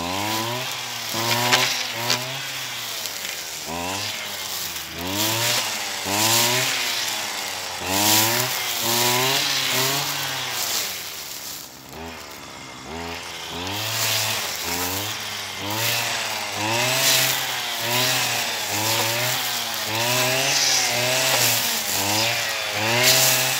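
Brush cutter's small engine cutting tall brachiaria grass, its pitch rising and falling about once a second with each swing of the head, with the hiss of grass being cut on top. About eleven seconds in it eases back to a lower pitch for a couple of seconds, then picks up again.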